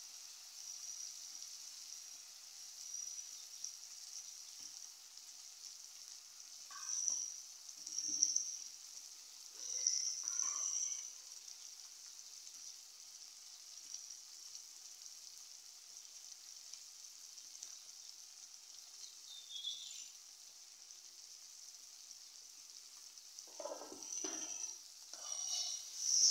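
Chopped tomatoes frying in oil in an aluminium kadai with a steady light sizzle. A flat spatula scrapes and stirs the pan a few times, about 7 to 11 seconds in and again near the end.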